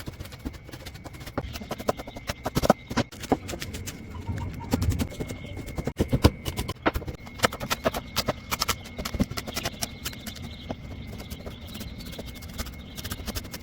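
Chickens feeding: many quick, irregular sharp taps of pecking, with clucking.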